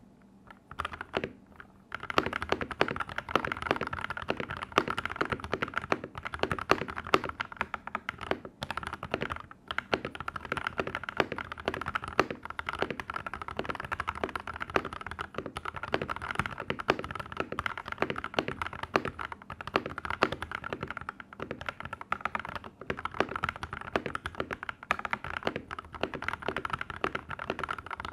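Fast typing on a DAXA M84 mechanical keyboard with lubed, filmed Gateron Yellow linear switches and Cherry-profile keycaps. It starts with a few scattered keystrokes, then goes to fast, continuous typing from about two seconds in.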